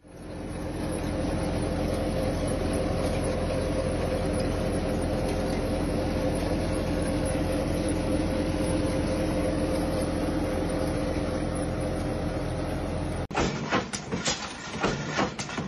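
Steady machine drone with a low hum and a few steady tones, cutting off sharply about thirteen seconds in, followed by a rapid, irregular clattering.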